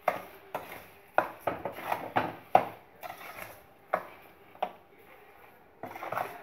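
Metal spoon scraping and knocking against a stainless steel pot while stirring thick, cooking grated carrot halwa. The strokes come irregularly, about a dozen in quick succession over the first three seconds, then only a couple, a lull, and a few more near the end.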